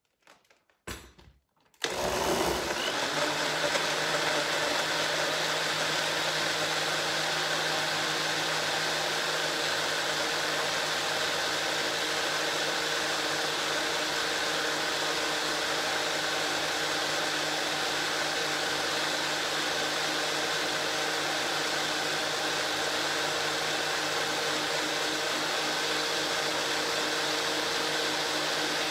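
Bullet-style personal blender with the four-pronged blade switching on about two seconds in and then running steadily, blending a thick avocado and cilantro dressing.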